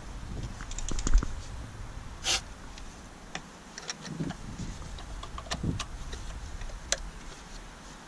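Scattered light clicks, taps and rattles of hand work on an engine top: ignition coils and their plastic electrical connectors being handled and fitted on a Jeep 4.7 V8. There is a brief rustling hiss about two seconds in.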